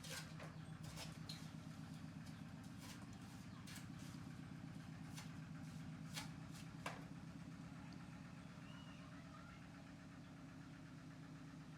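Faint, steady low hum of an idling engine or motor with a fast, even pulse, with a few scattered faint clicks and taps over it.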